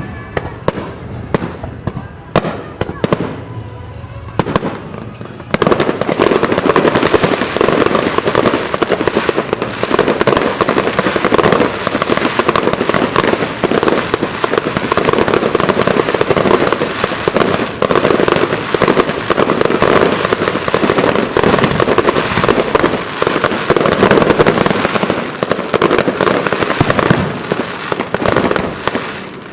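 Aerial fireworks bursting: a few separate bangs at first, then about five seconds in a dense, rapid-fire barrage of bangs and crackles that carries on without a break and stops just before the end.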